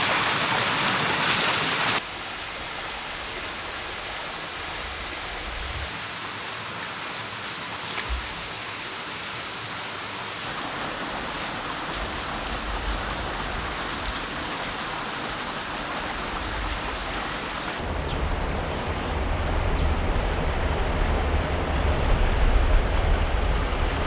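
Valley stream water rushing with a steady hiss. It is louder and brighter for the first two seconds, and a low rumble joins from about eighteen seconds in.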